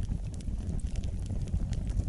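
Wood fire burning in a fireplace: a steady low rumble of flames with scattered small crackles and pops.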